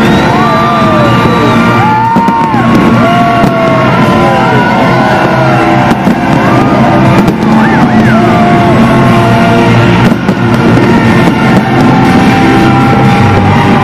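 Loud music over a fireworks display, with fireworks banging throughout.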